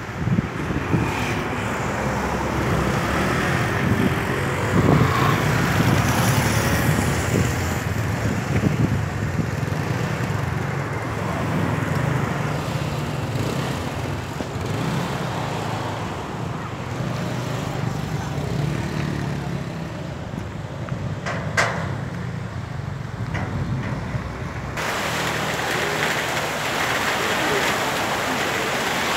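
Strong storm wind blowing in gusts, with a low rumble from the wind buffeting the microphone. Near the end a brighter hiss sets in suddenly.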